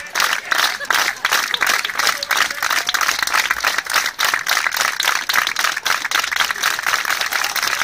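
A large crowd applauding: dense, continuous clapping from many hands.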